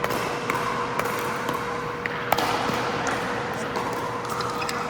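Pickleball play on an indoor court: a run of sharp pops from paddles striking the plastic ball and the ball bouncing on the floor, the loudest pop a little over two seconds in, over a steady low hum.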